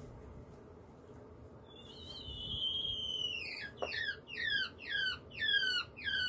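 Female quail calling while laying an egg: a long, high squeal held for about two seconds, then falling into five quick descending cries, about two a second. It is her egg-laying call, which sounds to the owner as if she is in pain.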